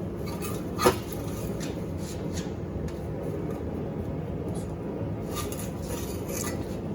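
Steady drone of running forge-shop machinery, with a sharp metallic clink that rings briefly about a second in and a few fainter clinks of metal on metal later.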